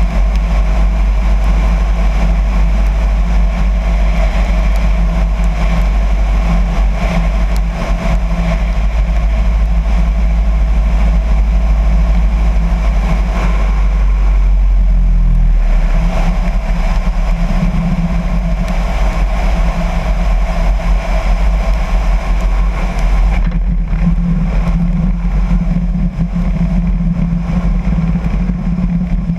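Piper Cherokee's single piston engine and propeller running steadily, with wind rushing over the tail-mounted camera as the plane lands. The engine note steps lower about halfway through, and the wind hiss thins near the end as the plane rolls along the runway.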